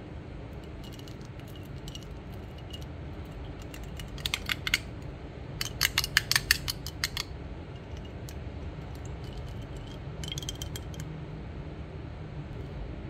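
Fingernails and fingertips clicking and tapping on a perfume bottle's rose-gold metal plaque and hard body: scattered light ticks, a short run of clicks about four seconds in, a denser, louder run around six seconds, and a few more near eleven seconds. A steady low hum lies underneath.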